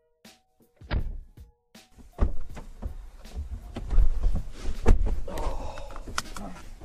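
Car doors and bodywork of a Mercedes-Benz saloon being knocked and shut as two people get in: one thud about a second in, then from about two seconds a busy run of knocks, thuds and clothing rustle inside the car, loudest a few seconds in. Faint background music fades out early on.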